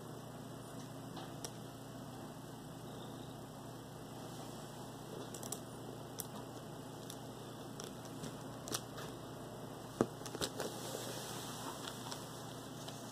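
Quiet steady room hum with scattered light clicks and soft rustling of bedding, the sharpest click about ten seconds in.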